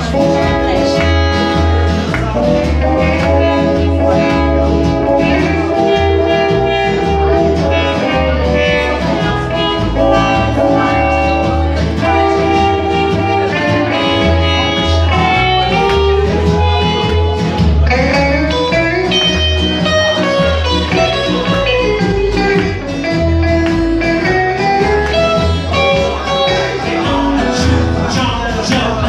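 Live country band playing on upright double bass, acoustic guitar and electric guitar, with a steady bass line underneath.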